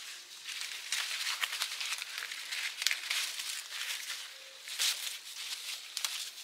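Crisp, irregular rustling and crackling of leaves and plant stems, coming in uneven bursts.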